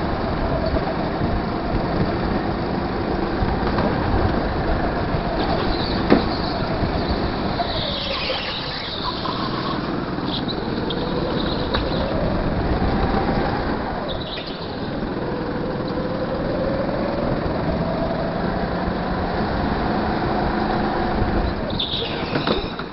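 Go-kart running flat out on a track, its motor note falling and rising as it slows for corners and speeds up again, with tyres squealing in several turns. A single sharp knock about six seconds in.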